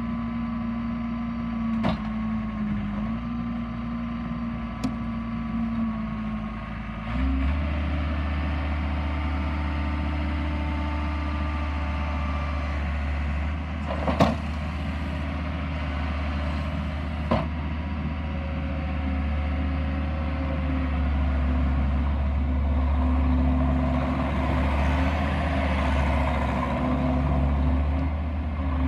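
John Deere 332 skid steer's diesel engine running steadily, stepping up to a higher engine speed about a quarter of the way in, with a few sharp clanks over the top.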